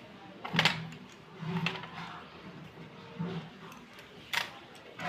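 White slate pencils clicking against one another as they are handled in a bundle: four sharp clicks about a second apart, the first the loudest.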